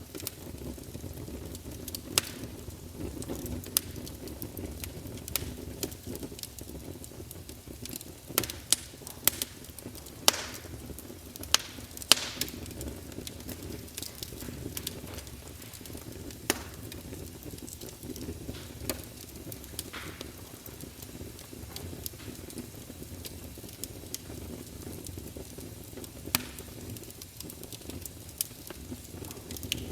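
Campfire burning, a steady low rumble of flames with irregular sharp crackles and pops of burning wood, the loudest cluster of pops about 8 to 12 seconds in.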